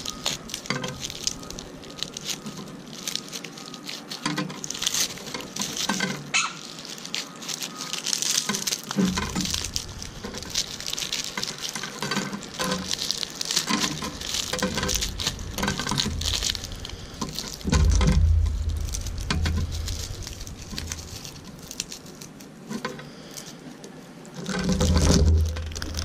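Dried sunflower seeds rustling and crackling as they are rubbed out of a ripe sunflower head by hand, the loose seeds pattering and clicking as they drop onto the tabletop. A low rumble comes in twice, about two-thirds through and near the end.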